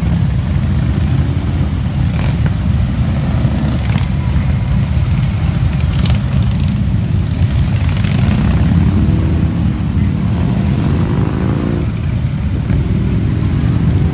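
Harley-Davidson motorcycle engines running through loud exhausts, a steady deep rumble whose pitch swells a couple of times, in the middle and near the end.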